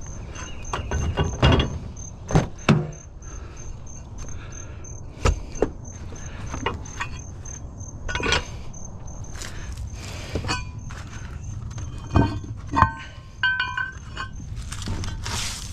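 Scrap metal pieces being handled: a string of knocks and clanks, with short ringing metallic clinks a little before the end. Insects chirp steadily and rapidly underneath.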